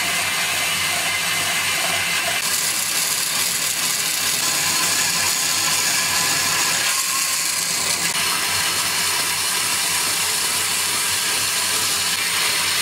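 Band saw cutting through a thick block of wood: a steady, loud rasping hiss of the blade in the cut, shifting in tone a few times as the block is fed and turned.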